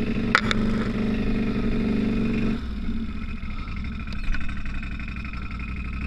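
Can-Am Outlander 850 ATV's V-twin engine running steadily at low speed while plowing snow, easing off about two and a half seconds in.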